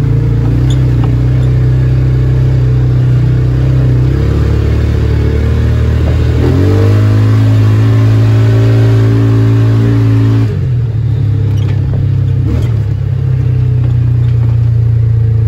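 Polaris Ranger 570's single-cylinder engine running under load as the UTV is driven, its speed picking up twice, around four and six seconds in, then dropping back about ten seconds in. It runs without ticking or backfiring now that a weak valve spring in the cylinder head has been replaced.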